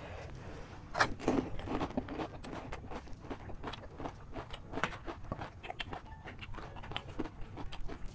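Close-up chewing and crunching of crisp panipuri and chatpatey (spiced puffed-rice mix): a dense run of small crunchy clicks, loudest about a second in.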